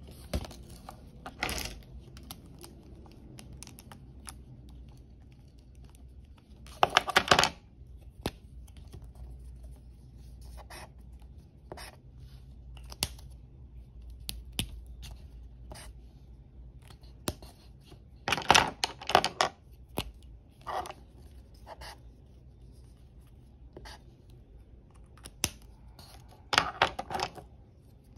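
Paper card being handled and slid about on a desk, rustling in three spells of about a second each, with scattered light clicks and taps of plastic highlighter pens being set down and uncapped between them.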